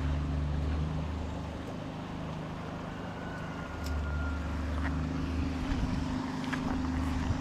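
A steady low motor hum, even in pitch, over a faint rushing background, with a few faint clicks.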